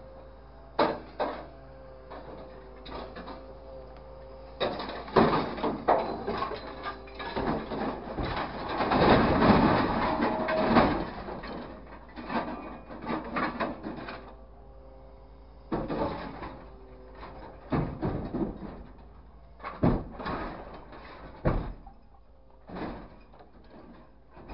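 Scrap metal clanking and banging as a grapple truck's claw drops and shifts scrapped car parts in its steel bin, with a dense stretch of crashing and clattering about eight to eleven seconds in. A steady machine hum runs underneath the knocks.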